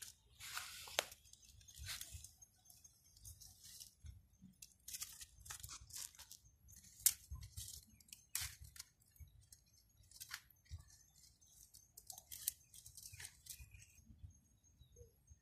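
Dry twigs rustling, crackling and snapping as they are handled, broken and stacked into a pile, in irregular bursts with a few sharp snaps.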